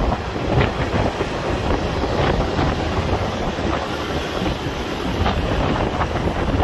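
Steady road noise from a four-wheel-drive vehicle driving along a sand beach track, a low rumble of tyres and engine with a few short knocks as it goes over the ruts.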